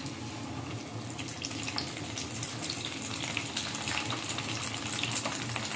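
Chicken and vegetable skewers deep-frying in hot oil, a dense sizzle full of fine pops. It grows a little louder as the oil bubbles up around the food.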